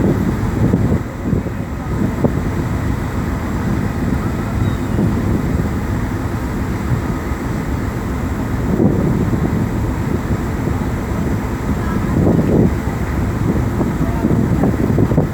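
A boat's engine running with a steady low rumble under wind buffeting the microphone, swelling in gusts a couple of times.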